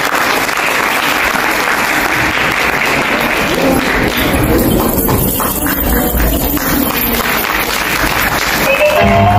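Audience applauding in a hall: a dense wash of clapping that thins toward the middle. Music begins near the end.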